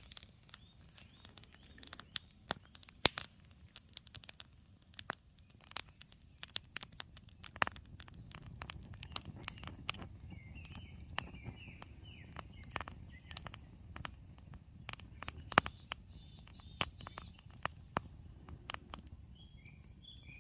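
Campfire crackling, with irregular sharp pops and snaps. Small birds chirp faintly in the background from about halfway through.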